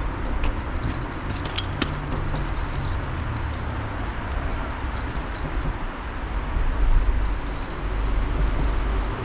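Steady high-pitched insect chirring over a low rumble on the microphone, with two sharp clicks about two seconds in.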